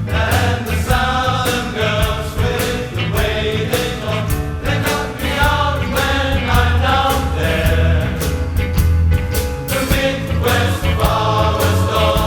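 Large mass choir of about 400 voices singing a pop medley in close harmony, over accompaniment with a steady beat.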